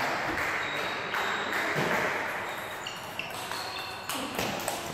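Table tennis rally: the celluloid ball clicks off the rackets and bounces on the table, the knocks coming quicker near the end, over the steady noise of a sports hall with other games in play.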